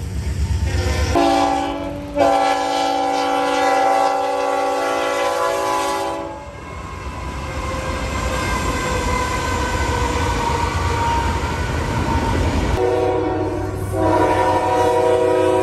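Diesel freight locomotives passing, with a multi-chime air horn sounding a long chord from about a second in, briefly broken, for about five seconds. The rumble of the passing train follows, and another horn blast starts near the end.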